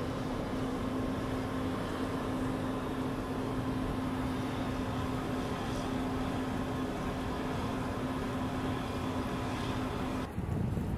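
A steady mechanical hum with a constant low tone, which stops abruptly about ten seconds in.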